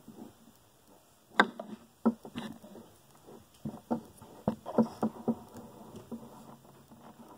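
Irregular scrabbling, scratching and knocking as a common marmoset claws and grapples at a plush toy in a plastic bin. The knocks come unevenly, with the sharpest one about a second and a half in and a cluster around the middle.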